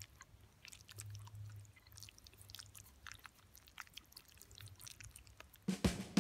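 A person chewing a mouthful of spaghetti carbonara, faint wet mouth clicks scattered throughout, with a few louder clicks near the end.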